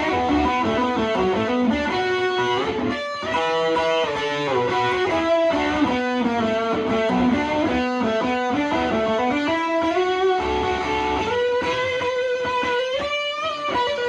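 Gibson SG electric guitar played through an amplifier: a lead line of single notes with pitch bends and slides.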